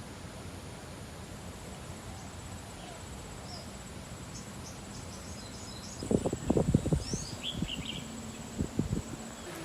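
Birds chirping and a faint steady high insect buzz over background hiss, with a quick run of dull knocks about six seconds in and a couple more near the end.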